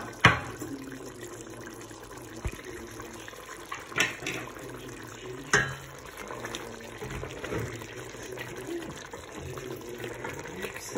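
Raw potato chunks being stirred into a pot of lamb curry with a silicone spatula: wet sloshing of the sauce, with sharp knocks against the steel pot, one pair right at the start, another about four seconds in and one more a second and a half later.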